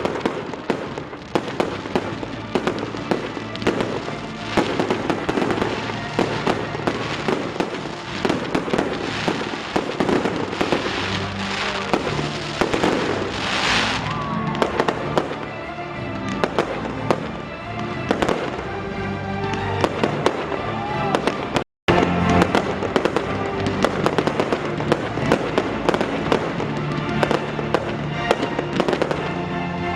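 Fireworks display: a dense, continuous run of sharp bangs and crackle from aerial shells, with music playing underneath. The sound cuts out for an instant about two-thirds of the way through.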